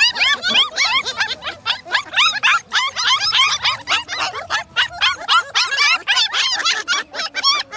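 A litter of puppies yipping and whining together, with many short, high cries overlapping in quick succession.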